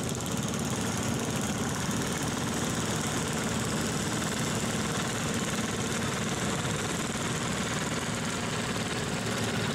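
Small Wheel Horse garden tractor engines running steadily at low speed as the tractors drive slowly past.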